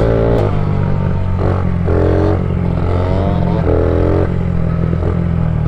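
Honda CRF50 mini dirt bike's small single-cylinder engine running steadily under way, with several short higher-pitched revs breaking in over it.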